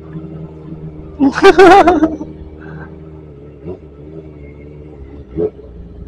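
Kawasaki Ninja sport motorcycle engine running steadily at low speed, its pitch dipping briefly a couple of times as the throttle eases. About a second in, a loud voice cuts in briefly over it.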